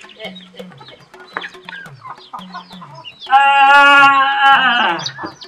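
Chickens clucking, and a rooster crows once about three seconds in: a loud call of about a second and a half that falls in pitch at its end.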